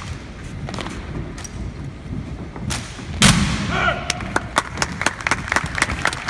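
Drill rifles handled in unison by an exhibition drill platoon: a few light clacks, then one loud sharp crack about three seconds in as the rifles come down together. A short shout follows, and scattered clapping starts near the end.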